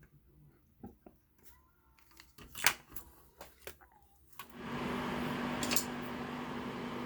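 Light clicks and taps of small tools on a repair bench. About four and a half seconds in, a small blower or fan starts and runs steadily, a hiss with a low hum.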